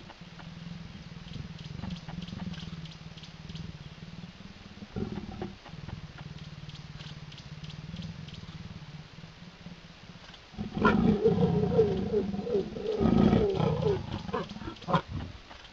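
Mating leopards growling and snarling: a low steady rumble for the first ten seconds or so, then about eleven seconds in a loud stretch of wavering growls and snarls lasting a few seconds, as the male bites the female's neck while mounted.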